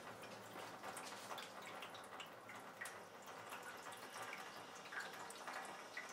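Faint water running from a water ioniser's outlet into a sink, with small drips and splashes, while the flow is turned down.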